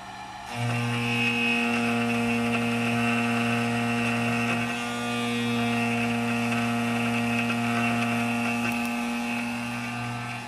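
A DIY 5-axis CNC mill's VFD-driven spindle cutting a metal workpiece with a small end mill: a steady whine with cutting noise that comes in abruptly about half a second in, over a fainter spindle hum, and holds evenly after that.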